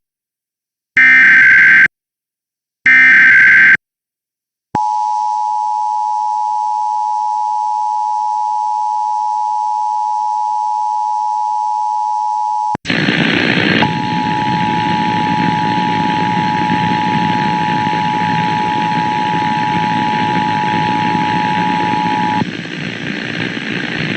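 Emergency Alert System broadcast heralding an AMBER Alert. Two harsh, buzzy SAME header data bursts about a second apart come first, then the steady two-tone EAS attention signal for about eight seconds. About 13 seconds in, a loud rough noise cuts in abruptly, and the attention tone carries on underneath it until a couple of seconds before the end.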